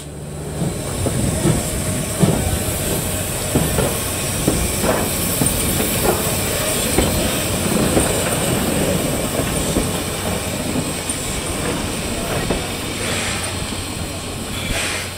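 C11 steam tank locomotive rolling slowly, its wheels and rods giving irregular clanks and clicks over a steady low rumble.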